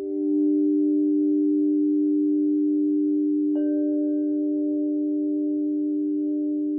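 Crystal singing bowls ringing with two steady, sustained tones. About three and a half seconds in, a bowl is struck, adding a higher ringing tone over the held ones.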